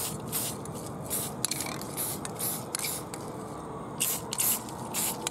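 Rust-Oleum Camouflage aerosol spray paint can being sprayed in short bursts, each a hiss lasting a fraction of a second, about ten in all.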